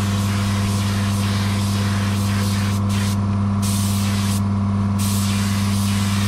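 Paint spray gun hissing steadily over the continuous hum of an air compressor, the hiss cutting out twice for about half a second a little past halfway as the trigger is let off between passes.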